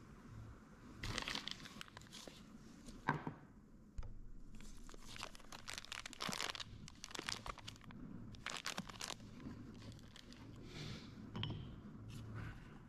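Clear plastic bag crinkling in the hands in bursts of crackles as a new shaft-seal part is taken out of it, with one sharp knock about three seconds in.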